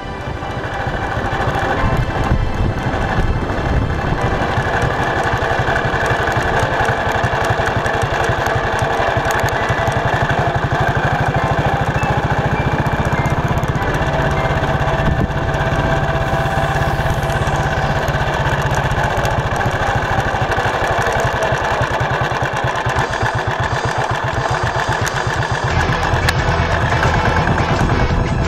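Motorcycle engine running at a steady riding pace while the bike rolls over cobblestones, with a dense, rapid low rumble throughout.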